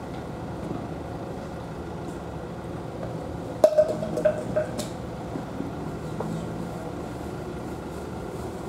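Steady low outdoor hum, with a sharp knock about three and a half seconds in followed by about a second of short chirps and a few clicks.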